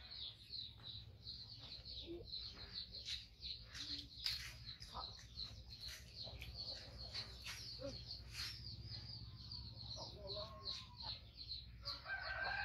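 Chickens clucking now and then, over a continuous fast, high-pitched chirping.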